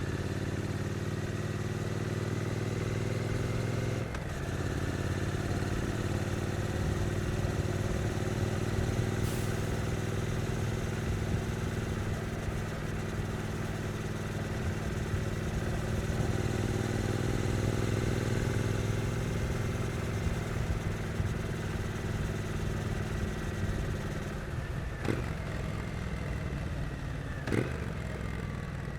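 Triumph Street Twin's 900 cc parallel-twin engine with its stock exhaust, running at a steady pace under light throttle. The note dips briefly about four seconds in, two short clicks come near the end, and the revs start to fall in the last second.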